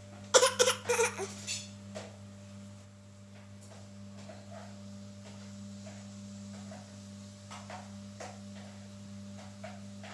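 A baby makes a quick cluster of loud, short vocal bursts near the start, then only faint small sounds. A steady low hum runs underneath throughout.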